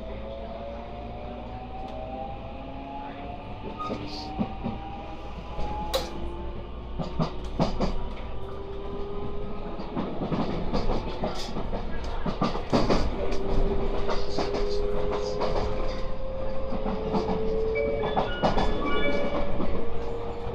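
Interior running sound of a JR West 223 series 2500-subseries electric train accelerating away from a station. The traction motors' whine rises steadily in pitch as the running noise grows louder, with scattered clacks from the wheels over the rails.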